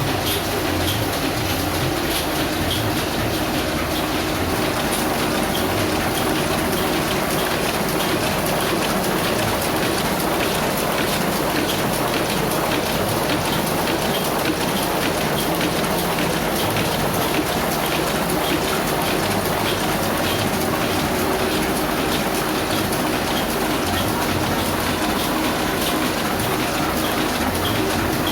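One-colour offset printing press running steadily: a continuous, even mechanical clatter with a hiss, made of many fine rapid ticks.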